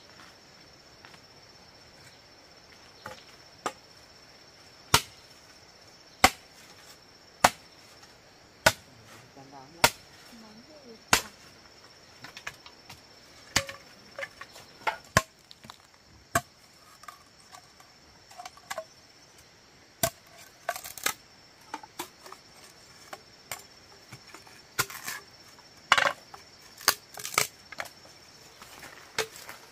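A run of sharp strikes, evenly spaced at about one every second and a quarter at first, then coming more irregularly and sometimes in quick pairs in the second half. A steady high-pitched whine runs underneath.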